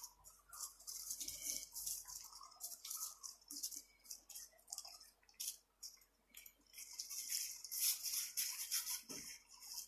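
Footsteps crunching and rustling through dry grass and brush on a dirt path, a scratchy hiss that comes in uneven bursts a few tenths of a second apart, with a dull thump near the end.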